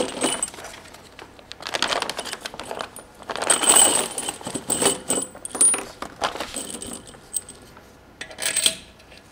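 Steel main-cap bolts clinking and jingling against one another in a plastic bag as they are picked out, in several short bursts.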